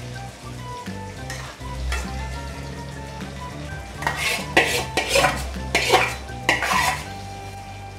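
A spatula stirring prawns and cauliflower through a simmering curry gravy in a metal kadai, with a light sizzle. From about four seconds in, a run of about six loud scrapes and knocks of the spatula against the pan's metal side.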